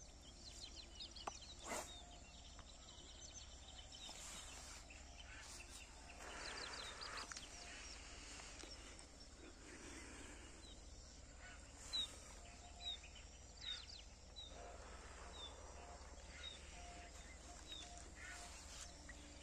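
Quiet open-air background with scattered short bird chirps and calls, several in quick succession later on, and a few sharp clicks, the loudest about twelve seconds in.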